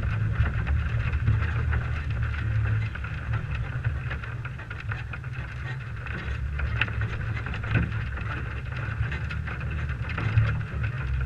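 Stock 1998 Toyota 4Runner driving over a dirt track, heard from a camera on its hood: a steady low engine and drivetrain rumble under a hiss of wind and tyre noise.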